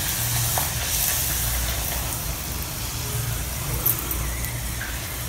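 Puri deep-frying in hot oil in a kadai: a steady sizzling hiss over a low steady rumble, with one light knock about four seconds in.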